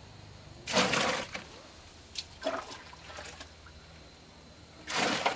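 Goat consommé being scooped from a pot with a metal dipper and poured out, splashing. There is a pour about a second in, smaller splashes in the middle and another pour near the end.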